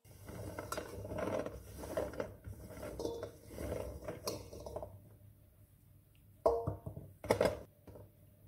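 Fresh green olives rattling and rolling against a stainless steel bowl as gloved hands sort through them, with two louder knocks near the end.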